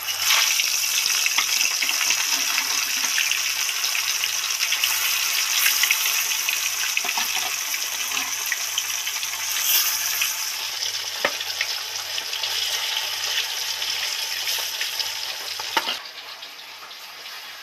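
Pieces of marinated katla fish sizzling steadily as they fry in hot oil in a kadai, with a sharp click about eleven seconds in. The sizzle turns much quieter about sixteen seconds in.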